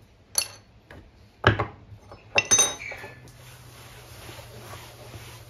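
Metal hand tools clinking and knocking against each other and the wooden workbench as they are picked up, a few sharp clanks in the first three seconds. After that comes a steady rubbing hiss of a cloth rag wiping the bench top.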